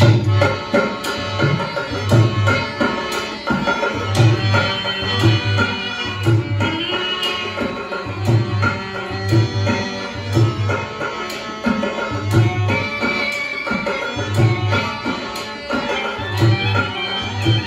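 Rajasthani folk music: a hand drum keeps a steady beat of deep strokes, about one a second, under sustained melody instruments.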